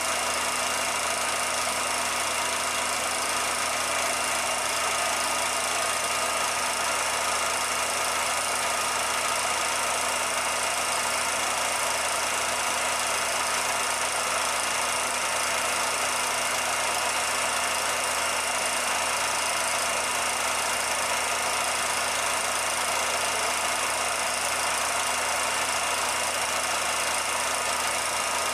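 Steady, even hiss with a faint constant hum under it, unchanging throughout and with no separate events.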